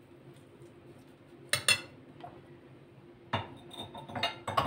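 Metal spoon knocking and clinking against a glass bowl: a couple of knocks about a second and a half in, then a quick run of clinks near the end.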